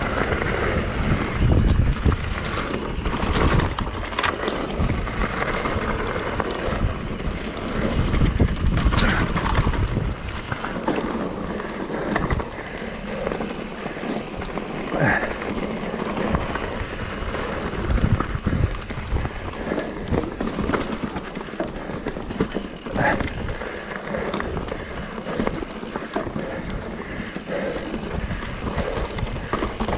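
Mountain bike descending rough dirt and rock trail: wind buffeting the microphone over a steady rumble of tyres on the ground, with frequent knocks and rattles from the bike as it hits roots and rocks.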